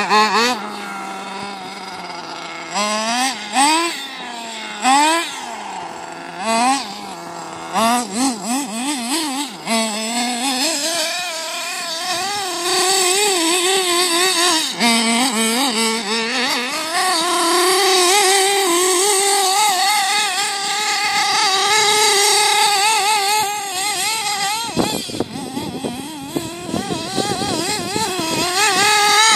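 Nitro-fuelled RC buggy's small glow engine revving in short bursts for about ten seconds, then held at high revs with a wavering high-pitched whine as the car drives, its exhaust leaving a trail of smoke.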